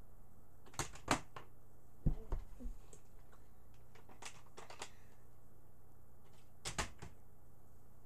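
Scattered light clicks and knocks, with a duller thump about two seconds in: a plastic water bottle being handled and set up around a metal step stool between flips.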